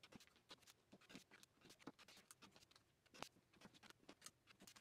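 Near silence with faint, irregular light clicks and ticks as a rotary cutter trims quilt fabric along the edge of a small acrylic ruler on a cutting mat; the sharpest click comes a little after three seconds in.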